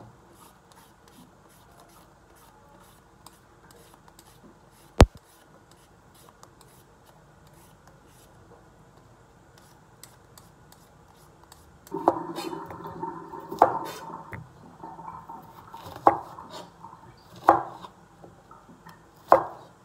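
A vegetable peeler scraping the skin off a cucumber in many quick, faint strokes, with one sharp click about five seconds in. From about twelve seconds a knife cuts through the cucumber on a cutting board, louder, with four sharp knocks of the blade on the board.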